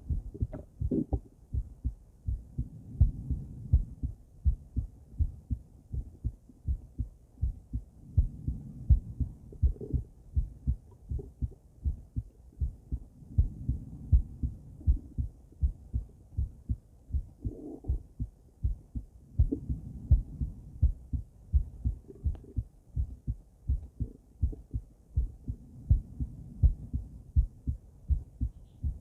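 A woman's heartbeat heard through a stethoscope fitted with a microphone: a steady run of low lub-dub beats. A soft rushing swells and fades every five or six seconds.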